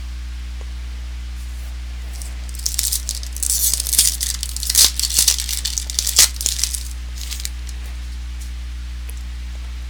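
Foil trading card pack wrapper being torn open and crinkled, a crackling, tearing stretch of about five seconds with a few sharp cracks, over a steady electrical hum.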